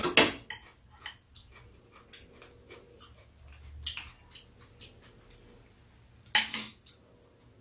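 Metal spoons and chopsticks clinking against bowls and a metal tray, a scatter of light clicks, with one louder sound about six and a half seconds in.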